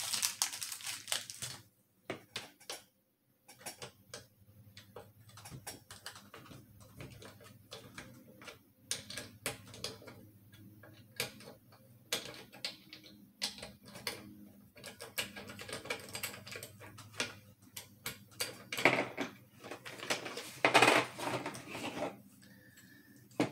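Scattered clicks, taps and plastic rustling as hands unwrap a small plastic bag, then unlock and pull apart a cheap plastic rifle trigger lock, with a couple of louder handling noises a few seconds before the end.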